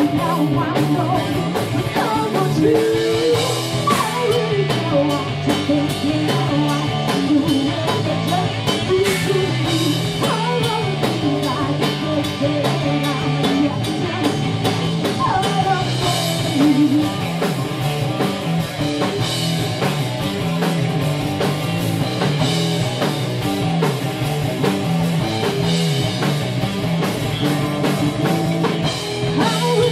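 Live rock band playing: a woman singing into a microphone over distorted electric guitar, bass guitar and a Tama drum kit.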